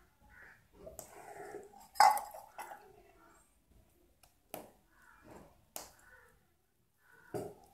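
Scattered sharp clinks and taps of glass bangles and a steel plate as hands shape maize dough, with faint voices in the background.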